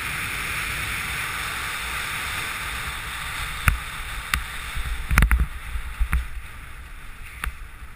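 Steady rush of air over the camera microphone during a low speed-riding flight over snow. It eases after about three and a half seconds as the skis come down to the snow, and several sharp clicks and knocks follow from the skis on hard, tracked snow.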